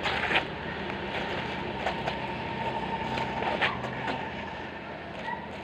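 A steady engine hum from a nearby motor vehicle fades after about four seconds. A few basketball bounces on the outdoor court sound over it.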